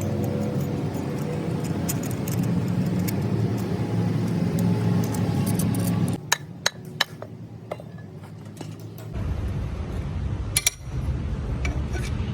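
Workshop sounds: metal parts and tools clinking over a steady low machine hum. The hum cuts off abruptly about six seconds in, leaving a few sharp metallic clinks, and a low rumble sets in a few seconds later.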